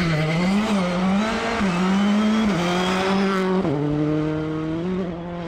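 Citroën C3 Rally2 rally car's turbocharged four-cylinder engine revving hard at full throttle, its pitch rising and falling repeatedly with the throttle and gear changes. About three and a half seconds in the pitch drops suddenly, then holds steady and high.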